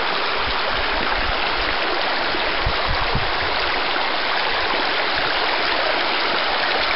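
A forest creek running high and fast after heavy rain, its water rushing steadily.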